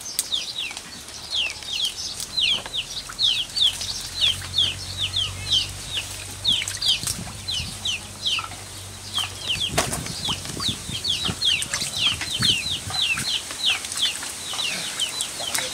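Chicks peeping: a steady run of short, high, falling peeps, several a second. A low hum joins from about a quarter of the way in and stops past the middle. A few short knocks come in the second half.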